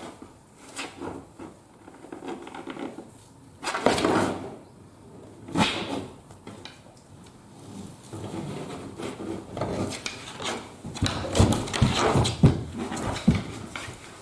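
Irregular rustling and wooden knocks from movement on a floor, with a run of louder thumps near the end.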